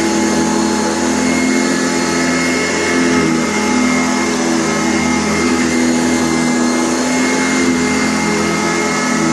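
Sanitaire SC684 bagged upright vacuum cleaner running steadily, a motor hum and whine whose lower tones waver slightly as it works.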